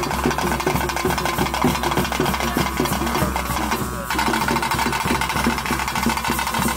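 Traditional Tulu ritual music: fast, even drumming with a held reed-pipe tone over it, briefly breaking about four seconds in.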